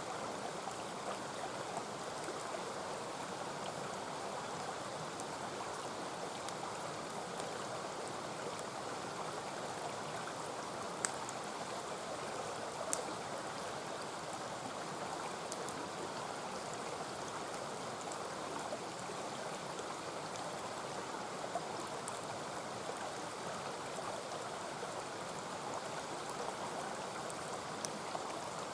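Mountain stream rushing steadily, with a few sharp crackles from a wood campfire scattered through it.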